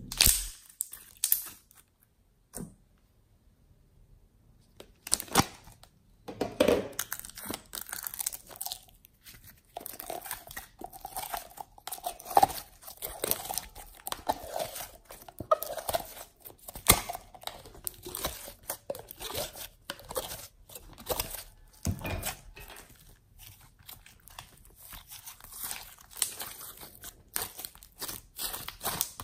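Slime being squeezed, pressed and pulled apart by hand: dense runs of crackling, popping clicks, with a short quiet pause a couple of seconds in.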